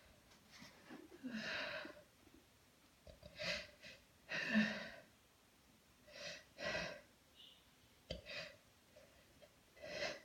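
A woman's sharp, catching breaths and gasps, coming in pairs about every two seconds: the breathing of a sneeze building up.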